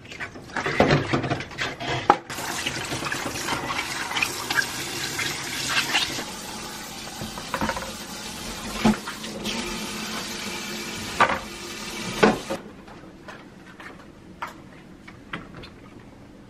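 Kitchen tap water running into a stainless steel sink as a plastic oven water tank is rinsed under it, with a few sharp knocks of the plastic against the sink. The running water cuts off near the end, leaving only faint small taps.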